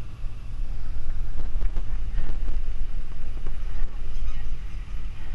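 Wind buffeting an action-camera microphone in a steady low rumble, with scattered knocks and rattles from a mountain bike riding over a dirt track.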